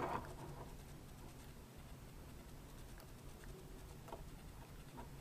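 Quiet handling of a small plastic-and-metal RC helicopter: a few faint small clicks as fingers work a part into its frame, over a low steady hum.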